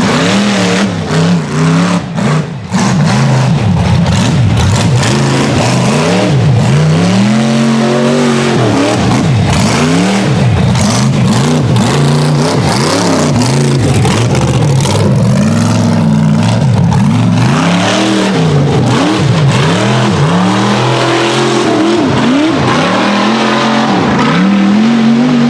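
Rock bouncer buggy's 434 small-block V8 revving hard. Its pitch climbs and drops over and over as the throttle is worked on and off.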